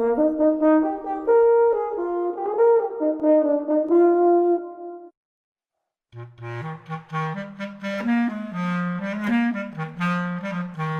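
Two short instrumental melodies standing in for whale songs: a higher phrase of several held notes, then, after about a second's silence, a different lower phrase that runs past the end.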